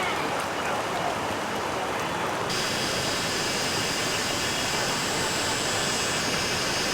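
Stream water rushing steadily. About two and a half seconds in, a steady high-pitched whine joins abruptly and continues over the water.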